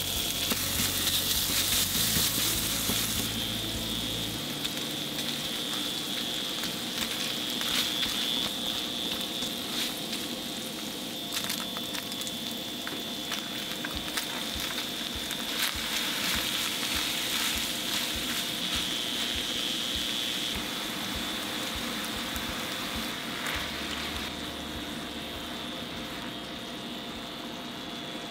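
Ground pork sizzling in hot oil in a frying pan over medium heat, loudest in the first few seconds, then frying on together with cubes of thick deep-fried tofu (atsuage).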